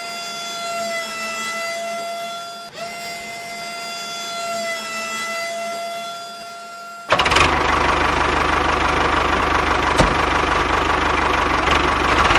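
Small electric motor whining steadily as it tips the toy trolley's bed, dipping slightly in pitch under load. About seven seconds in, a much louder steady rumbling engine-like noise starts suddenly.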